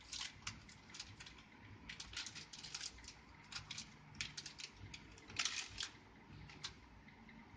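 Light, irregular clicks and taps from hands handling small hard computer parts, several a second, with a louder cluster about two thirds of the way through.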